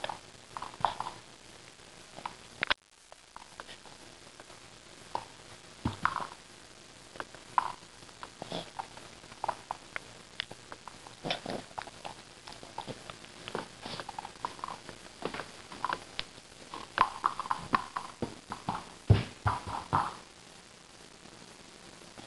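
A border terrier working a treat-stuffed rubber Kong ball on carpet: irregular soft taps, knocks and clicks of the toy, the dog's nose and paws and its claws on the carpet. Near the end comes a louder cluster of thumps.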